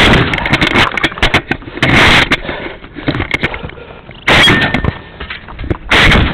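Shots from a Saiga semi-automatic during a timed run: four loud blasts about one and a half to two seconds apart, with quicker, thinner sharp cracks in between.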